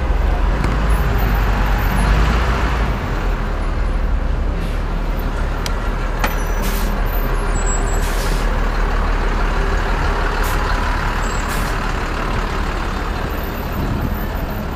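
Dense city street traffic heard from a bicycle riding among taxis, box trucks and a bus: a steady loud mix of engines and tyres with a heavy low rumble, and a few short hisses in the middle.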